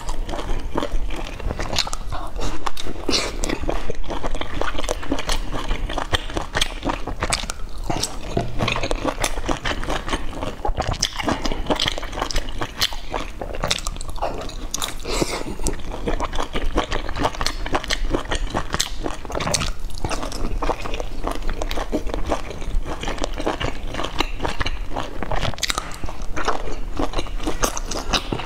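A person biting and chewing soft steamed dumplings, with many small mouth clicks.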